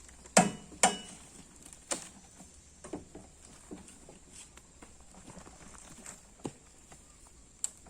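Irregular heavy knocks and thuds, the two loudest close together in the first second and weaker ones spaced out after: oil palm fresh fruit bunches being loaded onto a vehicle.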